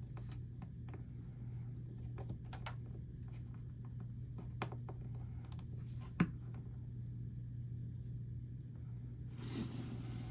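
Scattered small clicks and crinkles from hands handling blind box toy packaging, with one sharper click about six seconds in and a short rustle near the end, over a steady low hum.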